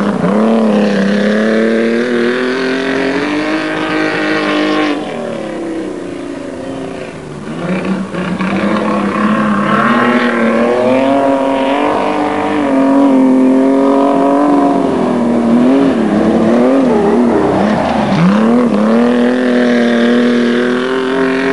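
Several racing speedcar engines running hard together in a continuous loud drone. Their pitch rises and falls as the cars back off and accelerate, with one sharp drop and climb near the end.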